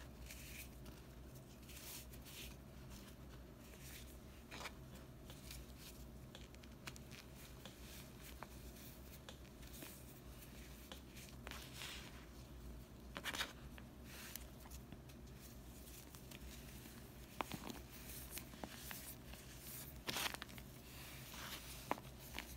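Hand squeezing and crumbling a dried, powdery slab of Comet and Ajax scouring powder mixed with gym chalk: soft, irregular crunching and crackling as the chalky lumps break apart and fall, with a few sharper crunches about halfway and near the end.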